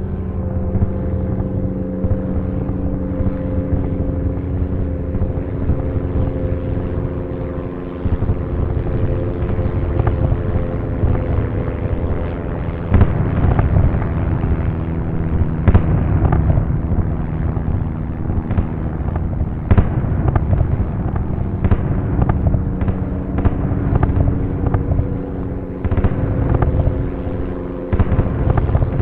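Air-raid sound: a steady drone of many bomber engines under a continuous run of bomb explosions and sharp cracks, which come thicker from about ten seconds in.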